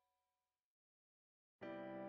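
Background music: the last notes of a held chord fade away, then about a second of silence, then a new piano piece starts abruptly near the end.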